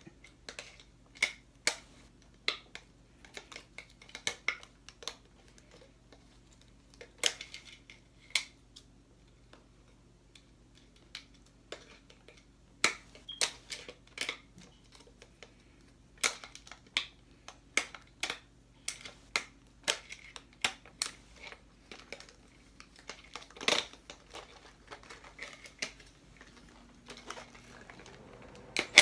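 Hands handling a plastic talking-figure toy and pulling off its packaging twist ties: irregular sharp clicks and taps, with a quieter stretch in the middle.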